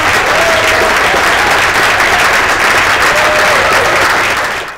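Theatre audience applauding, a dense and steady clapping with a voice or two calling out faintly; it cuts off suddenly at the end.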